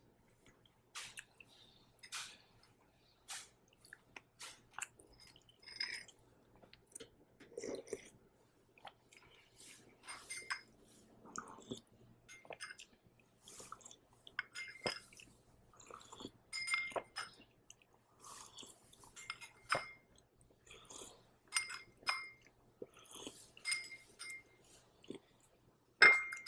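Close-up chewing and slurping of wonton soup, with repeated light clinks of a spoon against the bowl, some ringing briefly.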